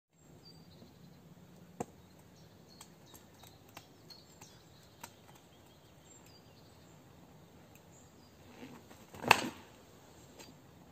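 Quiet open-air background with a few faint clicks and short high chirps, then one sharp thud about nine seconds in: a unicycle and its rider coming down on asphalt during a spin trick.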